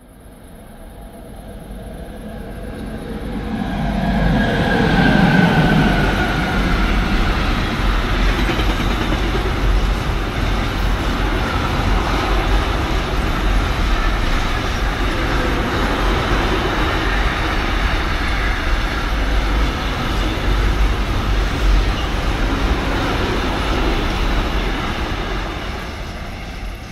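Train passing: the sound swells over the first few seconds, runs loud and steady for about twenty seconds, then fades away near the end.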